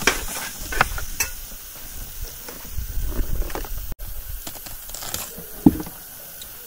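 Knife cutting a whole watermelon on a wooden chopping board: a few sharp taps and cracks of the blade and rind, over a low rumble.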